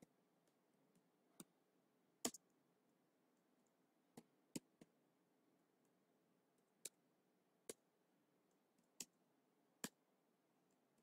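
Scattered single clicks of computer keys being pressed while typing, about ten sharp clicks spaced irregularly with near silence between them.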